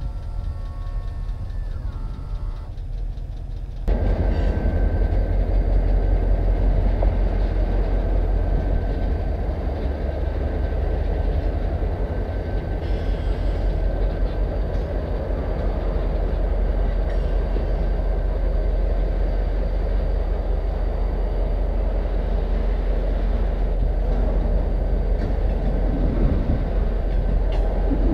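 Diesel freight train rolling past at a distance: a steady low rumble from the locomotive and cars. The sound cuts abruptly to a louder rumble about four seconds in.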